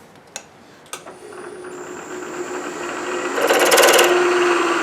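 Milling machine spindle running with a steady hum and a faint high whine, after two clicks near the start. A twist drill then bites into the plate with a loud rapid buzzing chatter for about a second near the end. The hole breaks over the plate's edge, so the drill is being pushed sideways.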